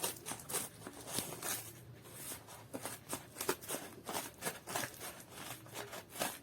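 Cardboard shipping packaging being worked open by hand: irregular rustles, scrapes and sharp clicks of handled and tearing cardboard.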